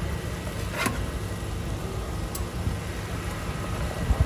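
A metal spatula working on an iron griddle, with a sharp clink about a second in and a fainter one a little later, over a steady low rumble.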